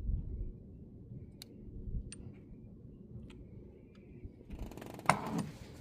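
Hand tools working on the engine during spark plug removal: a low knock, then a few sharp separate metallic clicks like a ratchet and socket, and a burst of rustling handling noise with a sharp click near the end.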